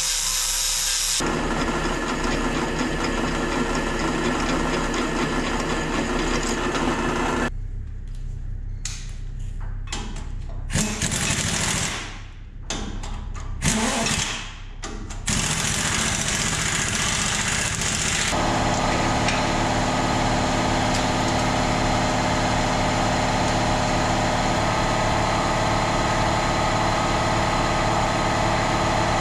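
Power tools working steel: an angle grinder cutting angle iron for about the first second, then a run of steady machine noise that stops and starts several times in the middle and changes character abruptly a few times.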